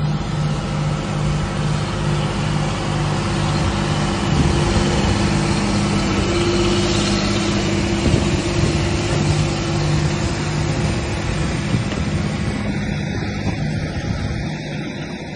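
Farm tractor's diesel engine running steadily under load as it tows a tracked military vehicle past, with a steady rumble of tyres on a muddy road. The engine note pulses gently and eases off slightly near the end.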